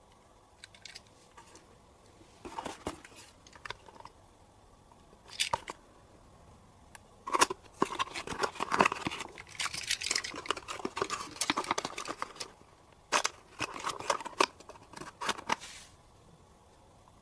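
Close handling noises: irregular clicks and rustling, crinkling bursts that come and go, busiest in the middle.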